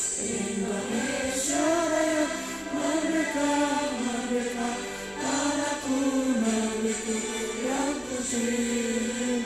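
A group of mostly women's voices singing a song together in unison, with held notes in a steady, measured melody.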